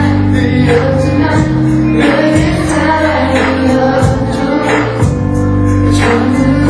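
Pop song music with a slow, steady beat and sustained bass notes.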